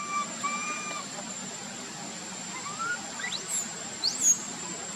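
Forest sounds: two short, flat whistles in the first second, then rising whistled calls about three and four seconds in, the last one loudest, over a steady high-pitched insect hum.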